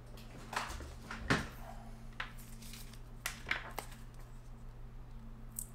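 Faint handling noise from a gaming headset's cable and a small plastic tag being picked up and turned over in the fingers: about half a dozen light clicks and rustles, over a low steady hum.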